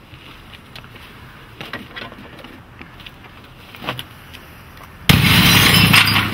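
Faint handling clicks and rustles, then about five seconds in a sudden loud crash as a thrown CRT computer monitor smashes onto concrete below, a harsh noise lasting over a second.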